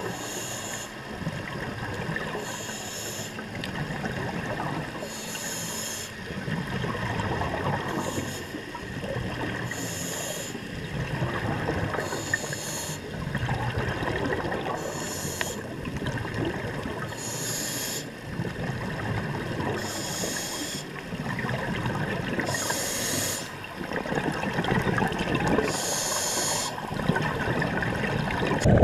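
Scuba diver breathing through a regulator underwater: a short hissing inhalation about every two and a half seconds, each followed by the bubbling of the exhaled breath.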